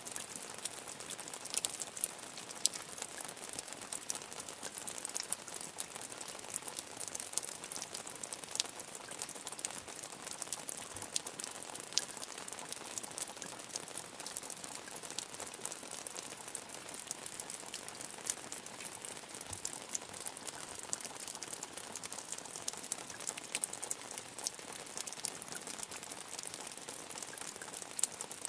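Medium rain falling steadily: an even hiss dense with the patter of individual drops.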